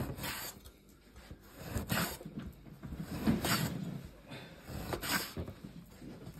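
Large cleaver-style kitchen knife slicing through dry-cured meat against a wooden cutting board: about five rasping cuts, roughly one every second and a half, the loudest in the middle.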